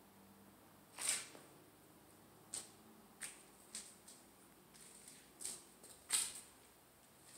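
About eight faint, sharp clicks and taps at irregular intervals over quiet room tone. The strongest come about a second in and about six seconds in.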